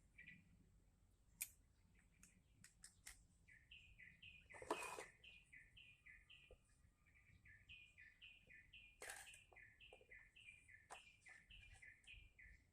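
Faint bird song: a long series of short, downward-slurred chirps, about three a second, with a brief pause midway. A few sharp clicks and two short bursts of noise come through as well.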